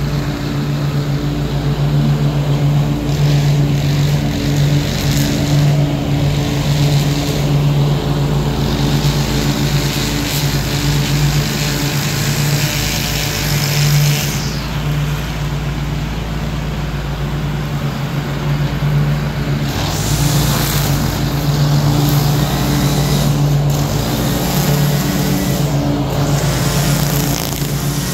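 Ariens Ikon zero-turn mower's engine running steadily as it mows, with a string trimmer's high whine running at the same time.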